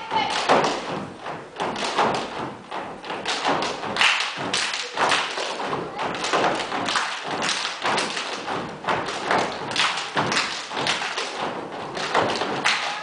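Gumboot dancers stamping their rubber boots and slapping them with their hands on a wooden stage: a dense run of thumps and slaps.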